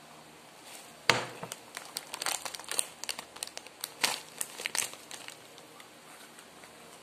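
Plastic snack wrapper being torn open and crinkled by hand: a run of sharp crackles lasting about four seconds, loudest at the first rip.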